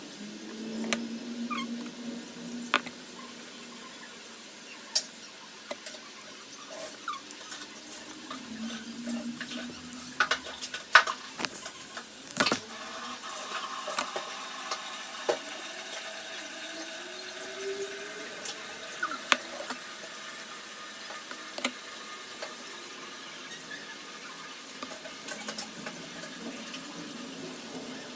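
Eating and drinking sounds: slurping from a bowl and lip-smacking, with a few hummed vocal sounds and scattered clicks and knocks of the bowl and utensils.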